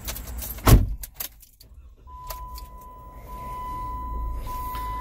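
Ignition key turned in a 2016 Jeep Wrangler: keys jangle, with a loud knock and a few clicks. About two seconds in, a steady high electronic tone starts and pulses about once a second. A low vehicle rumble builds underneath as the vehicle comes on.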